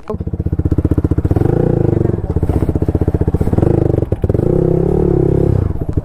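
Motorcycle engine running close by with a rapid exhaust beat. It cuts in suddenly and is revved up twice, about a second and a half in and again from about three and a half seconds in.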